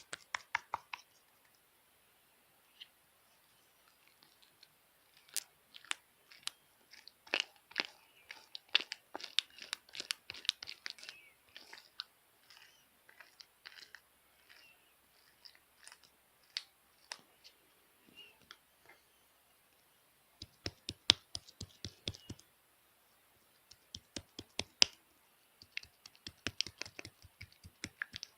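Hard slime being squeezed and pressed by hand, giving bursts of sharp clicks and crackling pops with short pauses between them.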